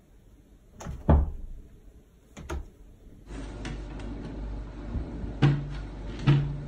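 Two thumps, then a cat pulling at a wooden kitchen cabinet door with its paw, the door knocking shut against the frame twice over a low steady hum.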